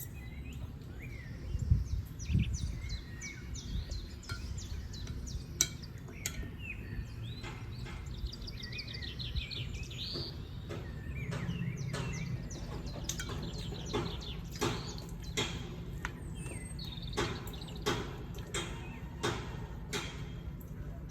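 Small birds chirping, with short rising and falling calls and a quick trill around eight seconds in, over a low rumble and many scattered sharp clicks and knocks.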